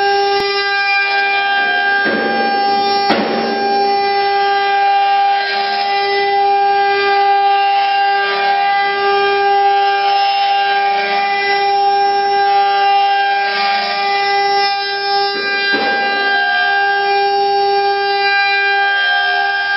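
Eight-spindle CNC wood router running, its spindles giving a steady, loud whine at several fixed pitches. Rougher cutting noise rises over it as the bits bite into the wooden table-leg blanks, around two to three seconds in and again near sixteen seconds.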